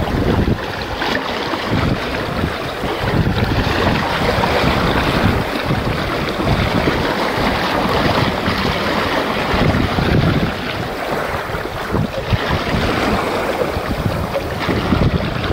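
Wind buffeting the microphone in uneven gusts over the steady rush of water along the hull of a Yamaha 25 MkII sailboat heeled under sail.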